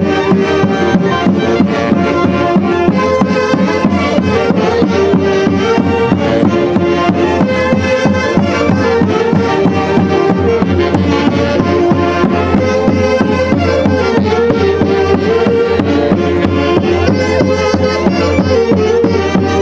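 Peruvian folk orchestra from Huancayo playing an instrumental piece, with sustained melody notes over a steady beat.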